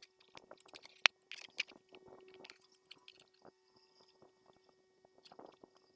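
Handling noise from a plastic headphone earcup being fitted together by hand: irregular small plastic clicks and the rustle of thin wires, with one sharp click about a second in and a smaller one just after. A faint steady hum lies underneath.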